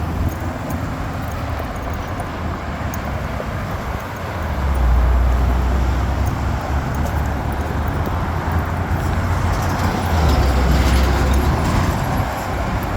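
Road traffic at an intersection: cars passing with a low engine and tyre rumble that swells about five seconds in and again around ten seconds in.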